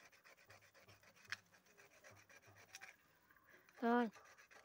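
Faint rubbing and scraping as the starter motor is handled and turned over by hand, with a single light click about a second in. About four seconds in comes a short, louder, wavering pitched sound whose pitch falls slightly.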